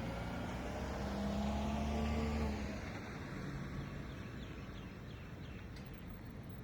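A motor vehicle's engine hum passing close by, loudest about two seconds in, then fading away.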